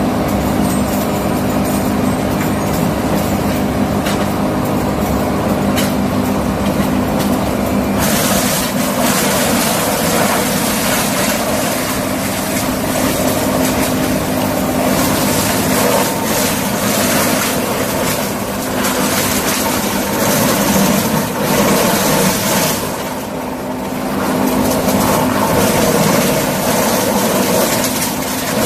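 Excavator engine running steadily under load while its tree attachment cuts and breaks macadamia limbs. Scattered sharp cracks come over the engine at first, then a loud, rough rushing noise joins it about eight seconds in and carries on, easing briefly a couple of times.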